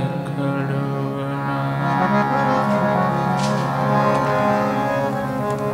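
Harmonium playing a kirtan melody on its own, steady sustained reed tones with several notes held together.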